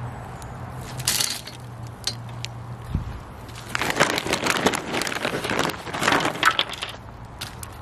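A handful of dry apple wood chips dropped into a Pit Barrel Cooker onto hot charcoal about a second in, then a bag of apple wood smoking chips rustling and crinkling for a few seconds as it is handled.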